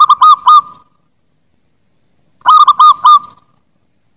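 Zebra dove (perkutut) cooing: two short phrases of about four quick notes each, the second coming about two and a half seconds after the first.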